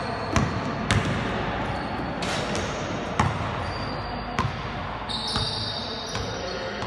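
Basketball bouncing on an indoor sports-court floor: about six separate thuds at irregular intervals.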